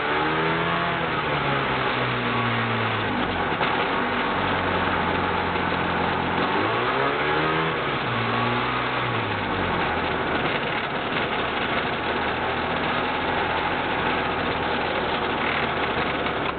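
Hi-Max ultralight airplane's engine and propeller running, with loud rushing prop wash and wind noise throughout. The engine pitch climbs and then drops back twice as the throttle is opened and eased off.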